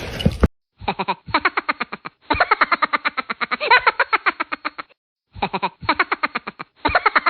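A comic sound effect of rapid, pitched, pulsing notes, about ten a second, that stops briefly near the middle and then repeats the same pattern.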